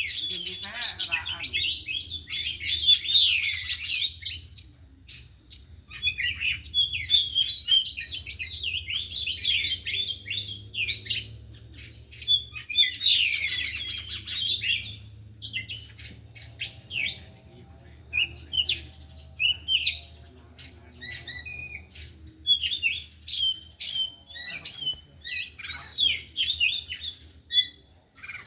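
Oriental magpie-robins (kacer) singing: fast, varied warbled phrases and chirps with short gaps, dense for the first half and thinning to scattered short calls later. Their full song includes mimicked phrases learned from other birds (isian). A faint steady low hum sits underneath.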